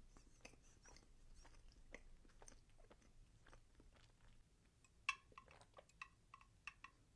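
Close-up, quiet wet chewing and mouth sounds of someone eating cake, with many soft clicks. From about five seconds in come one sharp click and then a quicker run of crisper clicks, about two or three a second.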